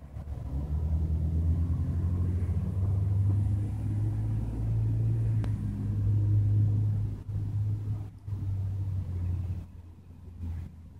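A low, steady engine-like rumble with a droning hum, which fades out about nine and a half seconds in.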